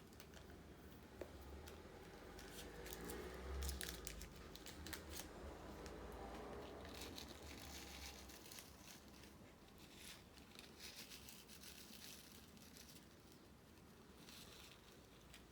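Faint rustling and crinkling of a small plastic bag of diamond painting drills being opened and handled, with scattered light clicks.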